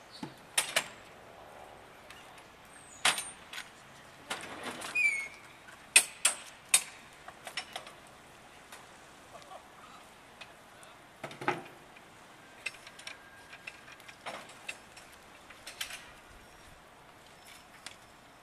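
Sharp metal clanks and clicks from the rear swing doors of a semi-trailer as the lock bars are worked and the doors are swung open, loudest and closest together in the first seven seconds, with a short squeak about five seconds in. Scattered lighter knocks follow.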